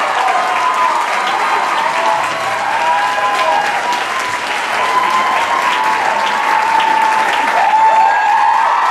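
Audience applauding, with whoops and cheering voices rising and falling over the clapping.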